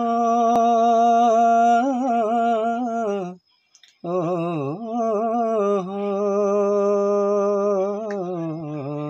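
A man singing unaccompanied: two long, drawn-out wordless vowel notes with a wavering vibrato, broken by a short pause for breath about three and a half seconds in.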